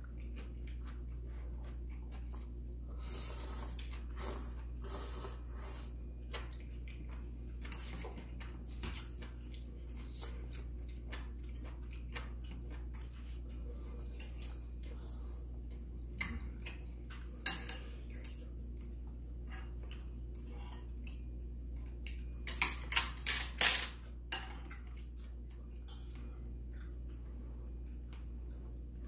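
Table utensils (chopsticks, spoons and a fork) clinking and scraping against ceramic bowls and plates during a meal, in scattered light clicks. One louder clink comes a little past halfway, and a quick run of louder clatters follows a few seconds later.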